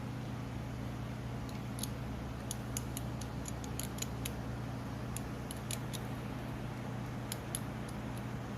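A scattering of light, sharp plastic clicks, irregular and a dozen or more in all, from mechanical keyboard switches being handled while they are lubed and put back together, over a steady low electrical hum.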